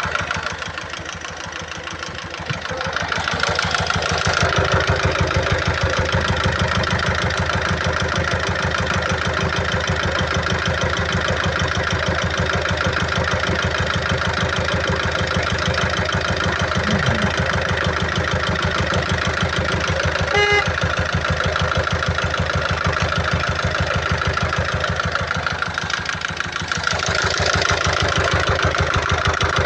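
Peugeot 1.6 HDi four-cylinder turbodiesel running at idle with a fast, even knock. One onlooker thinks it sounds like the exhaust. The sound grows louder a few seconds in and dips briefly near the end.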